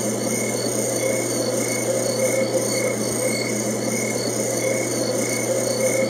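Ambient sleep soundscape: a steady hiss and low hum with soft, regular chirp-like pulses repeating a few times a second.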